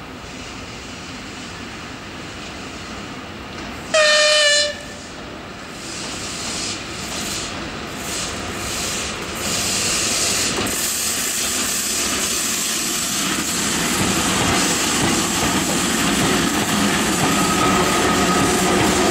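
VL80T electric locomotive sounding one short horn blast about four seconds in. Then the wheel-and-rail rumble and clatter of it and the four coupled VL80 electric locomotives it hauls grow steadily louder as they approach and pass.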